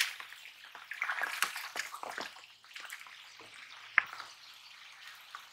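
A hooked fish splashing and thrashing at the water's surface as it is played on a bamboo pole, in irregular bursts of splashes with one sharp, loud splash about four seconds in.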